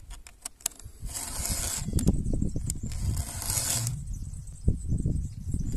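Round file rasping across a cutter tooth of a Stihl chainsaw chain: two strokes, about a second in and about three seconds in, each under a second long. Low knocks and rumble from handling lie underneath in the middle and later part.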